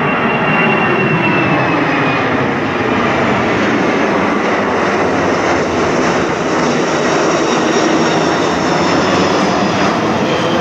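Airbus A340-300 with four CFM56 turbofans flying low overhead, landing gear down: a loud, steady jet rush with faint whining tones that slowly fall in pitch.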